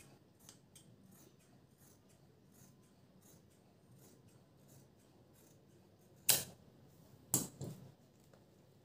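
Large tailor's scissors cutting through cambric cotton cloth, with a faint crisp snip about twice a second. Near the end come two much louder sharp sounds about a second apart.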